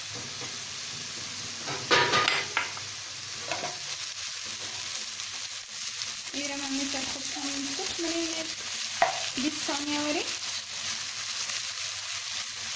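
Sliced onions sizzling in hot oil in a nonstick wok, stirred and turned with a slotted spoon as ginger-garlic paste goes in. A louder burst comes about two seconds in, and a few short squeaky tones come midway.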